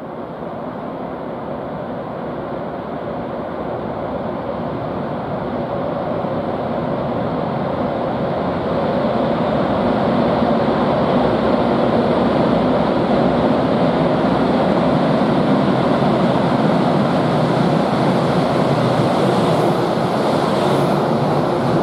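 EH500 electric locomotive hauling a freight train approaching and passing close by, a steady rushing running noise that grows louder over the first ten seconds or so and then holds as the locomotive goes by.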